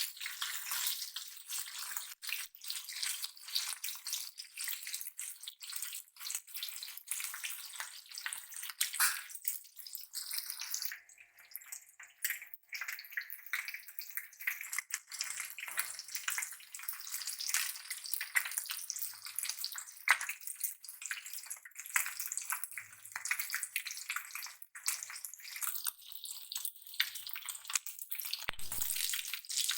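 Small fish shallow-frying in hot oil in a pan: steady sizzling with many sharp crackles and spatters, briefly quieter partway through. A low bump comes near the end.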